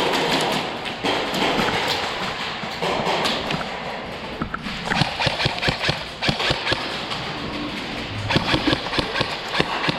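Airsoft guns firing during a game: irregular sharp clicks and pops, more frequent in the second half, over a steady rushing background noise.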